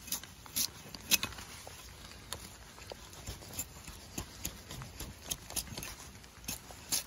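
A Hults Bruk 24-inch bushcraft axe shaving bark off a wet log: a series of short, irregular scrapes and clicks as the blade bites and peels the bark. The loudest comes about a second in.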